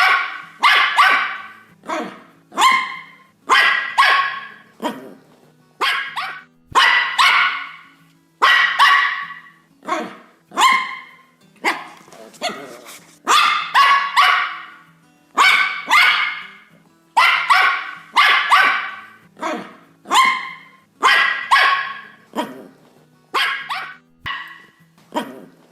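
A dog barking again and again, in single barks and quick pairs roughly every second, each bark starting sharply and fading quickly.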